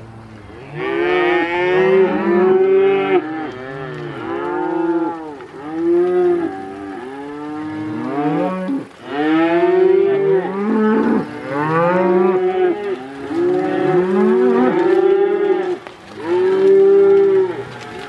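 Herd of beef cows and calves mooing almost without a break, many calls overlapping one another. The mooing starts about a second in.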